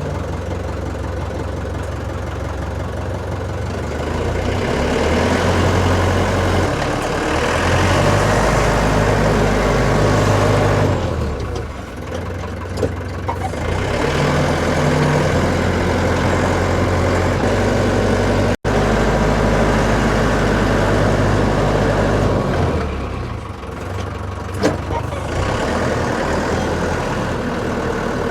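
Pressure washer running with its water jet spraying hard against the tractor, over a steady low motor hum. The spray stops twice for a couple of seconds each before starting again.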